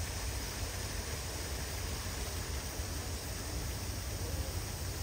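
Steady outdoor background noise: a low, flickering rumble under an even hiss, with no distinct events.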